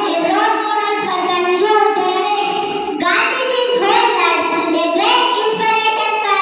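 Young girls singing a song into corded microphones, their voices amplified, holding long notes that glide from one pitch to the next.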